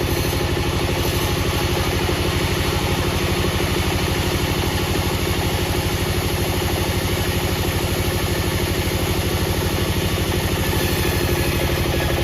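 An engine or engine-driven machine running steadily at constant speed, with a fast, even low pulsing and a steady hum.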